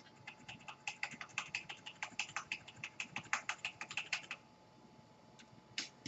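Typing on a computer keyboard: a quick run of key presses, several a second for about four seconds, then two separate clicks near the end.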